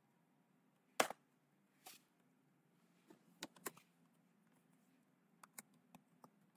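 Faint, sparse clicking of computer keyboard keys being typed: one sharper click about a second in, then small clusters of keystrokes around the middle and near the end.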